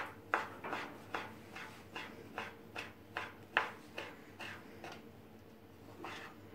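Kitchen knife slicing sucuk (Turkish sausage) thinly on a plastic cutting board, each cut ending in a sharp tap on the board, about two to three taps a second, fewer and fainter near the end.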